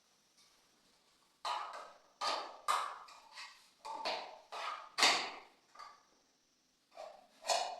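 Hard plastic toothbrush-holder cups and parts knocking and clacking as they are handled and fitted: about ten sharp knocks in quick irregular succession, each ringing briefly in the echoing bathroom.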